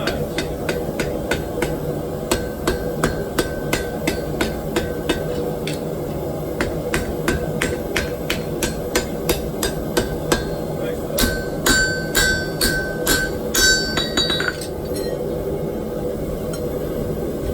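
Hand hammer striking hot steel on an anvil in a steady rhythm of about three blows a second. The last six or so blows are heavier and leave the anvil ringing. The hammering stops about fourteen and a half seconds in.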